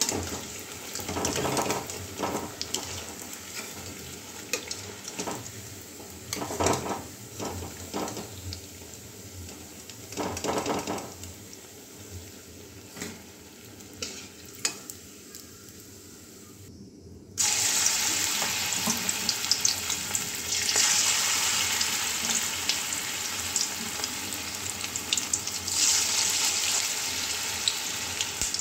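Moringa-leaf and rice-flour fritters sizzling in hot mustard oil in a metal wok, with a metal slotted spatula scraping and turning them every few seconds. About seventeen seconds in, the sizzle turns much louder and denser as a fresh batch of batter fries in the oil.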